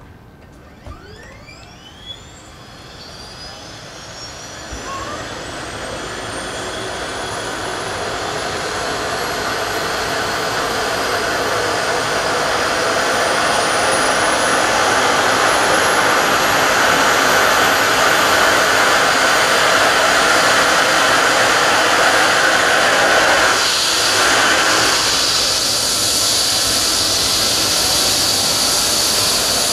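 Eurocopter EC135 helicopter's twin turboshaft engines and main rotor spooling up: a turbine whine rising in pitch and growing louder over the first dozen seconds, then running steady and loud.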